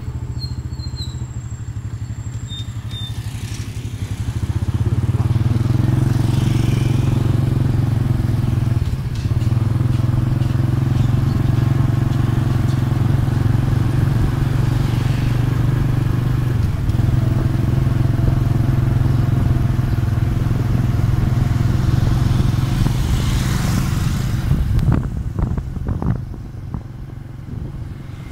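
Motorcycle engine running under way with wind noise on the microphone. It picks up about four seconds in, holds steady, and eases off near the end.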